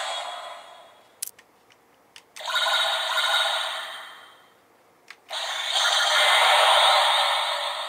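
DX Arc Galaxer toy weapon playing electronic attack sound effects from its built-in speaker. One effect fades out in the first second. Two more follow, each a couple of seconds long, and a sharp click comes just before the last and longest one.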